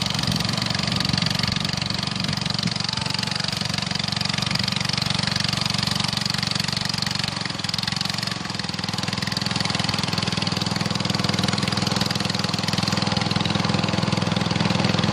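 A small engine running steadily, an even, unbroken drone.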